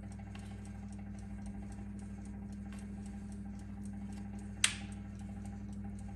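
A steady low hum with faint, rapid ticking over it, and one sharp click about four and a half seconds in.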